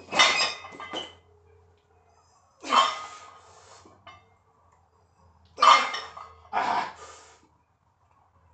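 A lifter's forceful, heavy breaths, four short loud ones, while bracing under and pressing a heavy barbell overhead.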